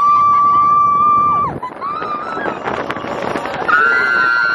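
Roller coaster riders screaming: one long, steady scream for the first second and a half, then a rush of wind and ride noise, and a second long, higher-pitched scream from a little before the end.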